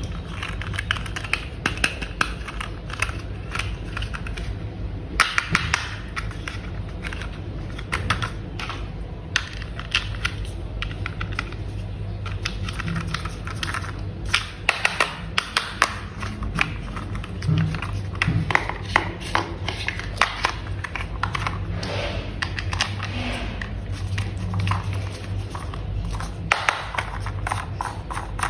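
Plastic toy parts clicking, tapping and snapping together by hand: many light clicks, some in quick runs.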